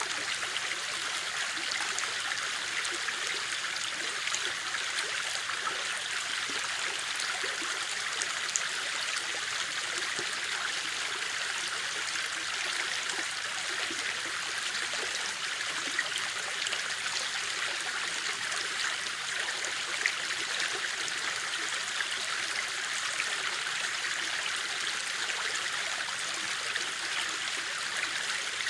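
A river or stream running steadily over rocks, an even rushing with small splashes and gurgles through it.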